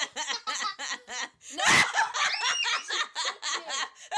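A person laughing hard in quick repeated bursts, with one louder burst of laughter about two seconds in.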